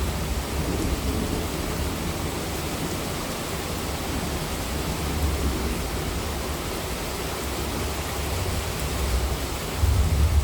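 Heavy monsoon rain falling steadily as a dense hiss, with a low rumble underneath that swells near the end.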